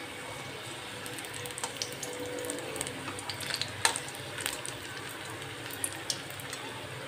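Batter-coated green chillies (mirchi bhaji) deep-frying in an iron kadhai: a steady sizzle of hot oil with scattered pops and crackles. The gas is off, but the oil is still very hot.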